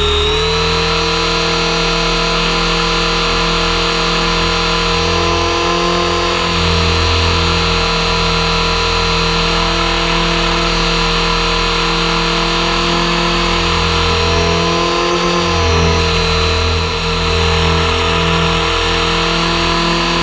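Radio-controlled helicopter in flight, its motor and main rotor making a steady whine, heard from on board. The pitch shifts slightly a few times as it turns, with a brief rise and dip about 15 seconds in.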